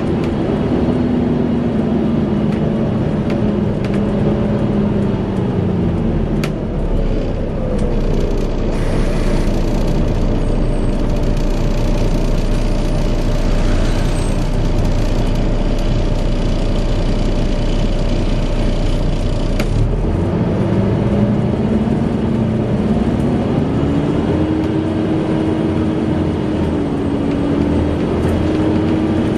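Volvo B7TL double-decker bus with its cooling fan giving the whine known as the 'hoover'. The whine falls in pitch over the first few seconds as the bus slows, and gives way to a steady low idling hum. About twenty seconds in, the whine rises again in pitch as the bus pulls away.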